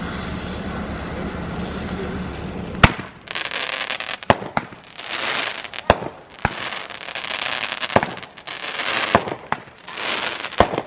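A steady low hum, then consumer fireworks going off about three seconds in: one very loud bang, then repeated hissing, crackling stretches punctuated by several more sharp bangs.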